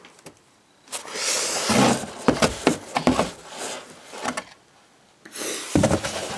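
Corrugated cardboard sliding and scraping as a chainsaw and a cardboard sheet are worked into a large cardboard box, with a few light knocks. It goes quiet briefly about half a second in and again around five seconds.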